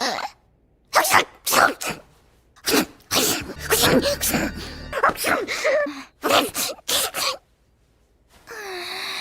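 Anime characters' voiced sneezes: several short, sharp sneezes cut one after another, separated by brief silences, with a denser run of sneezes and breaths in the middle.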